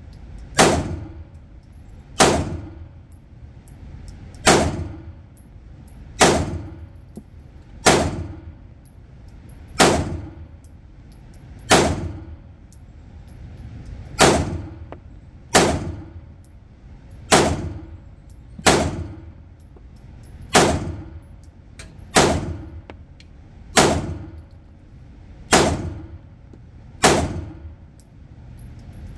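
Polymer80 PF940 Glock-pattern 9mm pistol fired in slow single shots at an indoor range: about sixteen shots, one every one and a half to two seconds, each with a short echo off the range walls. The pistol cycles every round without a stoppage and runs really well.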